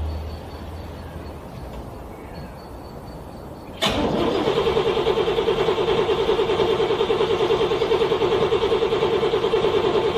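A car engine being cranked on its starter in freezing cold, failing to catch. After a quieter stretch it starts abruptly about four seconds in, then runs as a steady rhythmic chug of about five strokes a second.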